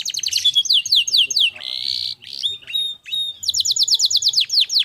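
Domestic canary singing: fast trills of high, falling whistled notes, a short harsh buzzy note about two seconds in, then another rapid trill.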